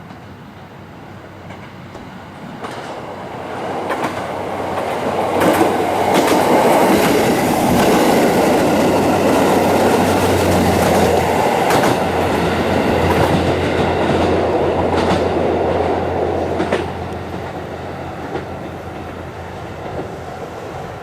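Kiya 95 'Doctor Tokai' track-inspection diesel railcar passing. It rises over a few seconds and is loud for about ten seconds, with a steady low hum and scattered sharp wheel clicks, then eases off.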